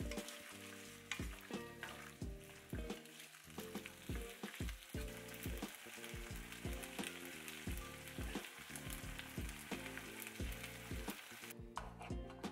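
Food sizzling in a pan under background music with a steady beat; the sizzling cuts off near the end.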